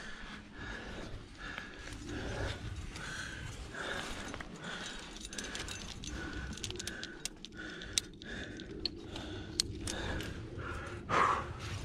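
A climber breathing hard while working up a chimney, over steady scraping and rustling of clothing and pack. There are a few sharp clicks of gear in the second half and a louder burst near the end.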